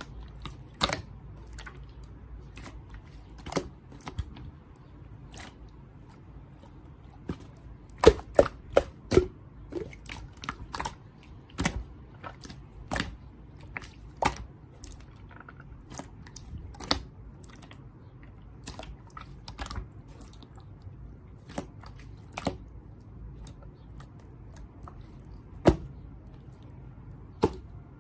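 Irregular light clicks and taps, with a quick cluster of louder ones about eight seconds in, over low room noise.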